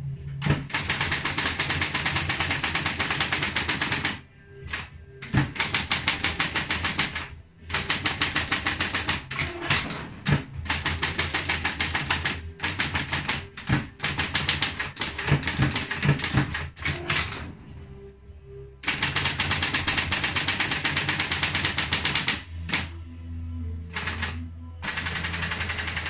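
1963 Triumph Electric 31 electromechanical typewriter typing in long, fast runs of key strikes, broken by a few short pauses, over the machine's steady low hum. Near the end the strikes are softer and the hum comes through more.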